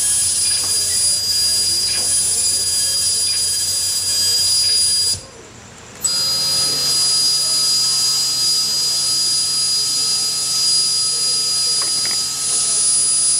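Harsh electronic noise with steady high-pitched tones from a bare circuit-board electronic instrument played live. It cuts out abruptly for under a second about five seconds in, then comes back with a low steady hum added.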